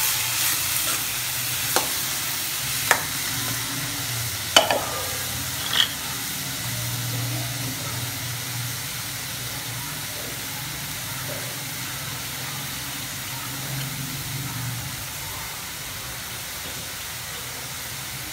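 Diced banana stem frying with a steady sizzle in a metal kadai, stirred with a metal spoon. The spoon clinks and scrapes sharply against the pan about four times in the first six seconds.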